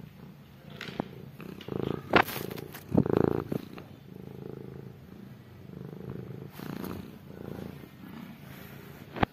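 Kittens purring steadily, with a few sharp clicks, the loudest about two seconds in, and a louder swell about three seconds in.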